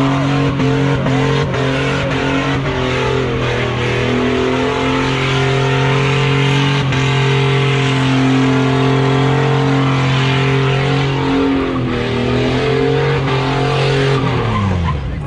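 Pickup truck doing a burnout in circles: the engine is held at steady high revs while the rear tyres spin and squeal on the asphalt. Near the end the revs drop sharply and then climb again.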